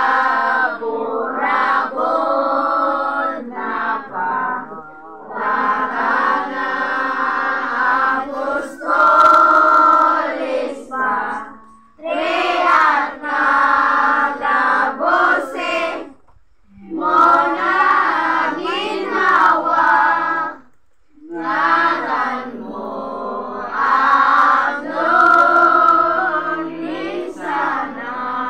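A group of women and children singing a devotional hymn to the Virgin Mary together, in long phrases with short pauses between them.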